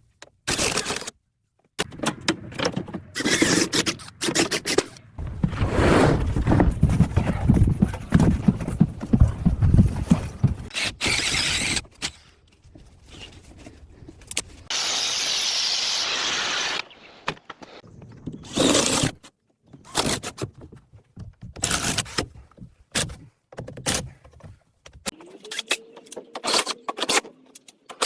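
A quick-cut run of building and tool-work sounds: short knocks and clicks, a few seconds of rough, heavy scraping in the middle, then a steady hiss, each cut off sharply by the next.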